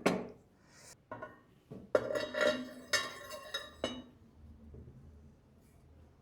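Metal parts of an antique chandelier clinking and knocking together as they are handled and set down. Several sharp strikes ring on briefly, the loudest about two and three seconds in.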